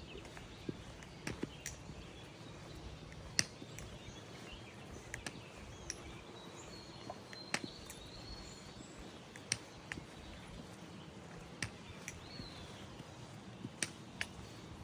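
Quiet outdoor ambience: a steady low background noise with scattered sharp clicks about once a second, and a few faint bird chirps near the middle.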